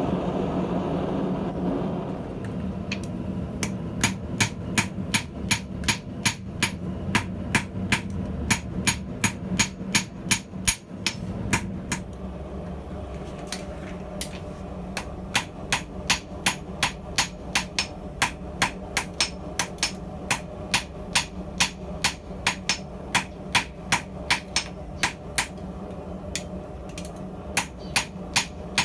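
Hand hammer forging hot steel on an anvil: a steady run of ringing blows, about two to three a second, with a pause of a few seconds about halfway through and a brief one near the end. A steady low hum runs underneath.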